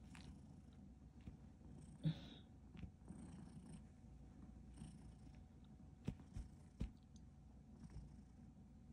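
Domestic cat purring faintly and steadily, with a few faint knocks a little after the middle.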